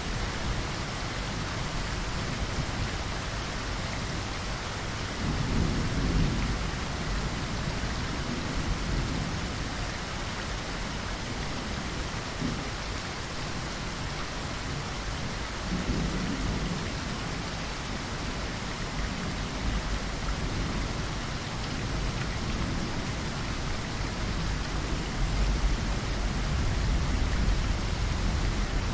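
Steady rain with low rolls of thunder: one swells about five seconds in, another around sixteen seconds, and the rumble builds again near the end.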